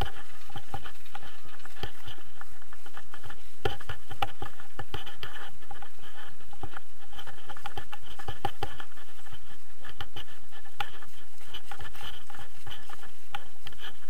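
Wind buffeting the microphone of a camera on a tandem paraglider in flight: a steady, loud, scratchy rushing noise with rapid crackles.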